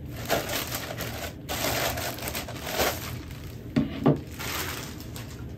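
Clear plastic bag crinkling and rustling as a rigid camera-lens hood is handled out of it, then two quick knocks close together about four seconds in as the hood is set down.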